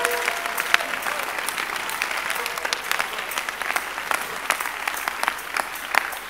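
A large congregation applauding: dense, overlapping hand claps that slowly die down.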